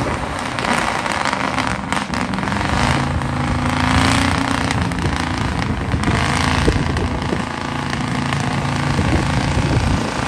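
Engine of a modified ex-military off-road truck working hard under load as it climbs a steep bank out of a mud pit, its pitch rising and falling as the driver works the throttle.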